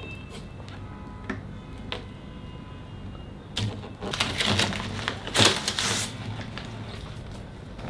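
Handling noise from a new acoustic guitar, with a few faint ringing tones about a second in. In the middle comes a few seconds of scraping and rustling as the cardboard fretboard protector is pulled off over the strings.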